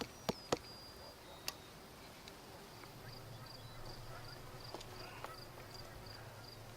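An insect chirping steadily, about four short high pulses a second, with a few sharp clicks in the first couple of seconds and a faint low hum coming in about halfway.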